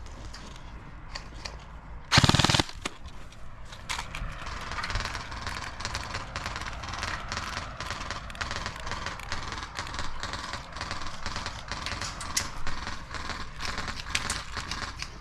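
A short full-auto burst from an airsoft gun about two seconds in, the loudest thing here. After it comes a steady rustle with many small scattered clicks.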